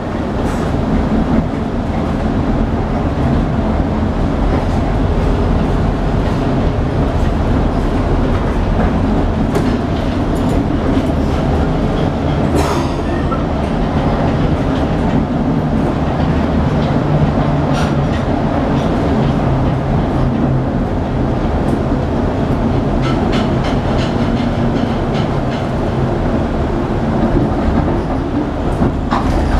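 Ride inside a 1948 St. Louis-built PCC streetcar running along its track: a steady low rumble of the car's motors and steel wheels on the rails, with scattered sharp clicks and clatter from the wheels over the track.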